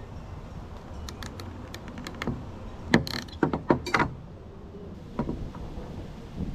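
Hand crimping tool and small wire fittings clicking as a heat-shrink butt connector is crimped onto a wire: a run of sharp clicks and small knocks, thickest about halfway through.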